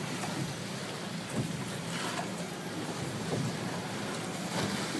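A boat running at trolling speed: the steady hum of a 300 HP Suzuki outboard under wind and the wash of choppy water against the hull.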